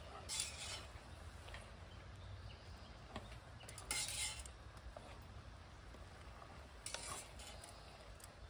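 Spoon stirring sauce in a cooking pot, faintly scraping against the pot three times: near the start, about four seconds in, and about seven seconds in.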